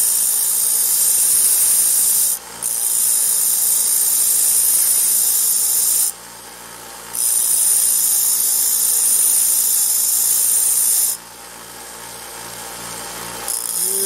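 Small grinding wheel grinding down the metal frame of a Marx toy train car to level it. The grinding comes as a loud high hiss in four long passes, each broken off as the piece comes away from the wheel, with the motor still humming in the pauses.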